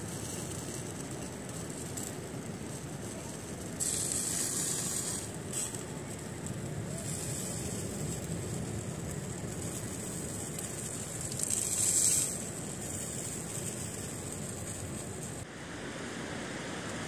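Sausages sizzling on a disposable foil-tray barbecue: a steady hiss that swells twice, about four seconds in and about twelve seconds in, and drops away near the end, over a low rush of wind and surf.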